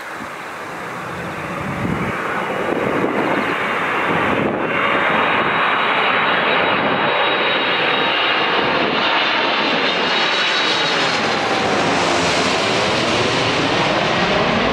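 Boeing 747-400F's four jet engines on final approach, passing low overhead: a rush of engine noise that builds over the first few seconds and then stays loud, with a high whine coming in about five seconds in and pitch sweeps as it goes over.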